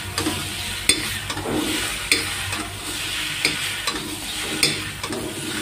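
Rice fara dumplings sizzling in ghee and green chutney in a metal kadhai. A metal spatula stirs them, scraping and clicking against the pan about once a second.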